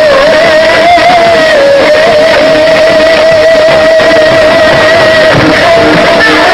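Loud music with one long, wavering melody line held with few breaks over a dense accompaniment.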